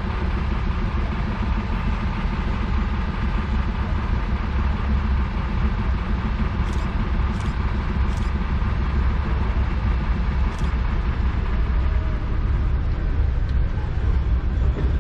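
PKP Cargo 311D diesel locomotive hauling coal wagons, its engine running with a steady low drone as it draws slowly towards the platform, growing slightly louder near the end.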